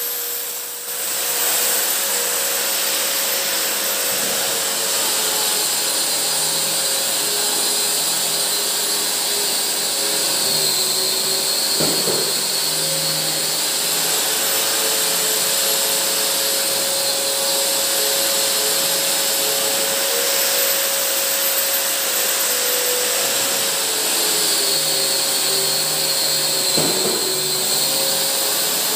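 Long-reach pole drywall sander running steadily as it sands plastered wall joints, together with the dust-extraction vacuum on its hose; a steady whine whose pitch drifts slowly up and down.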